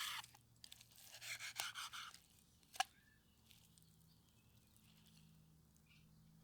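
Faint chewing of a bite of steak, with one short click a little before halfway, then near silence.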